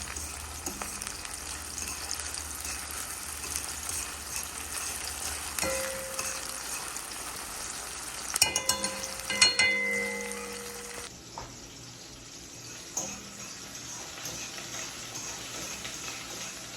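Food sizzling in a frying pan on the stove, with a cluster of metal utensil clinks and scrapes against the pan about halfway through. The sizzling drops a little in level about eleven seconds in.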